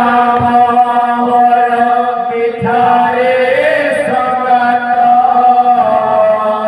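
Male voices singing a devotional kirtan chant in long held notes, amplified through a microphone, over a steady low drone.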